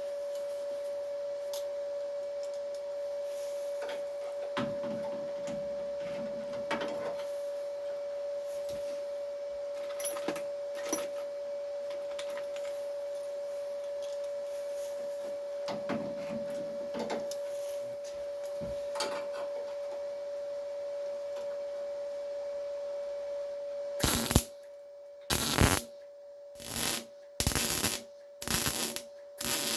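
A steady high-pitched hum with a few faint clicks. From about 24 s in, a run of about six short, loud crackling welding bursts follows, each under a second, tacking a repair piece into a car body panel.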